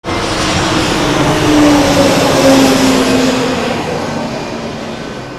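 Jet airliner flying low overhead: a loud rush of engine noise that builds to a peak about two to three seconds in and then slowly fades, with a humming tone that drops a little in pitch as it passes.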